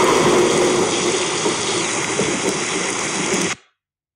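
Thunderstorm sound effect played as a recording: a long, loud rumble of thunder with a noisy wash, which cuts off suddenly about three and a half seconds in.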